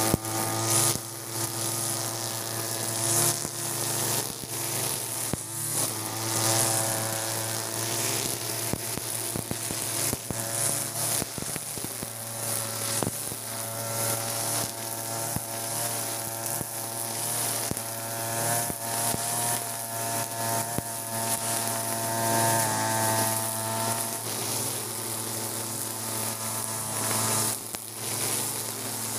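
Backpack brush cutter's small petrol engine running at high speed, spinning a trimmer head with 2.4 mm nylon line that cuts through grass with many sharp ticks and crackles. The engine note holds steady, wavering slightly as the line meets the grass.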